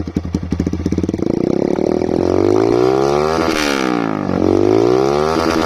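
Single-cylinder engine of a TVS Raider 125 motorcycle with an aftermarket exhaust, idling with a pulsing beat and then revved hard twice. The pitch climbs to a peak about three and a half seconds in, drops back, and climbs again near the end.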